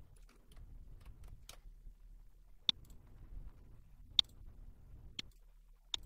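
Computer mouse button clicking: four sharp, separate clicks over a few seconds, the loudest about four seconds in, with fainter ticks in the first second and a half over a low hum.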